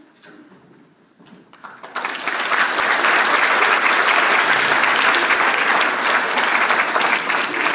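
Audience applause in a hall. A few scattered claps come after a brief lull, then about two seconds in they build quickly into loud, steady clapping from many hands.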